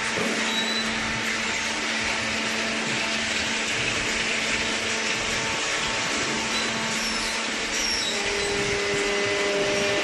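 Waste-paper baler's motor and hydraulic pump running steadily: a continuous even machine hiss with a faint low hum underneath.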